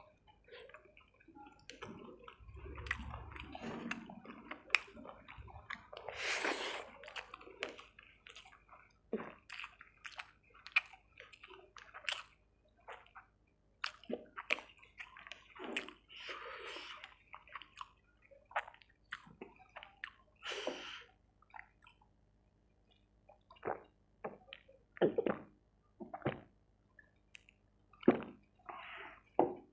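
Close-miked eating of chicken curry with rice: wet chewing, squishy mouth sounds and lip smacks in irregular bursts, with short pauses between bites.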